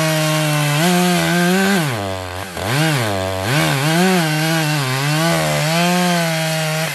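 Gas chainsaw cutting through a log at high revs; from about two seconds in, the engine speed drops and recovers several times as the chain loads up in the wood.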